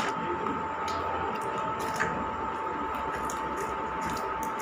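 Scattered faint clicks and crinkles as crunchy snack pieces and a foil chip packet are handled by mouth on a tiled floor, over a steady high hum.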